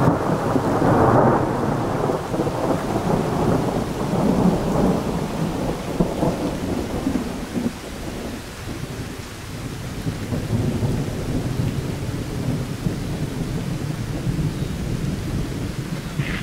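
A loud, uneven low rumble with no distinct strokes. It is strongest in the first few seconds and eases a little about halfway through.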